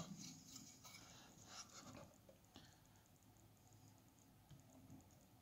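Near silence, with a few faint clicks and rustles in the first two and a half seconds as hands handle small circuit boards.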